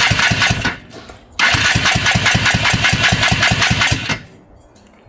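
Polaris 300 two-stroke ATV engine being cranked on its electric starter in two bursts, a short one and then one of nearly three seconds, chugging at about seven compression strokes a second without catching: the freshly rebuilt top end won't fire, so starting fluid is needed.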